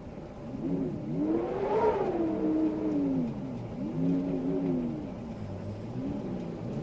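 Wind howling, its moaning pitch slowly rising and falling in waves, loudest in a swell about two seconds in.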